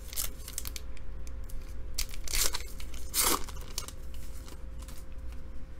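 A foil trading-card pack wrapper being torn open and crinkled, in a few short rasping rips.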